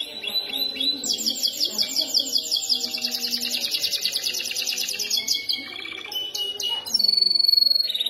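Yellow domestic canary singing: long, fast rolls of rapidly repeated notes, then varied chirps, ending with a loud, steady, high whistled note in the last second.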